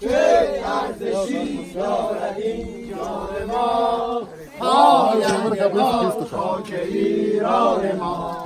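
A group of men's voices singing a chant together, loud and continuous with short breaks.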